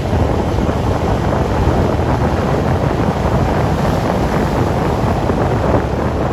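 Steady wind buffeting the microphone over rushing water, heavy and low-pitched, with no distinct paddle strokes standing out.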